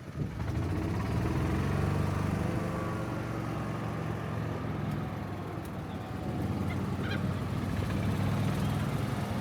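A motor running steadily with a low drone, with faint higher tones held above it.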